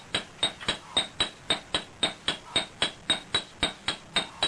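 Blacksmith's hammer striking iron on an anvil in a steady rhythm, just under four blows a second, each blow with a bright metallic ring.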